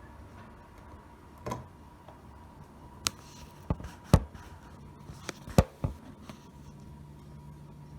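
Sharp metal clicks and taps of a pick and tension wrench working in an old Yale deadbolt cylinder during lock picking: about seven irregular clicks, the loudest just past the middle, over a faint steady hum.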